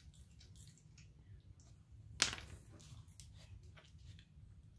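Faint scattered clicks of a raccoon moving and foraging on a tile floor, with one sharp click about two seconds in, over a low steady hum.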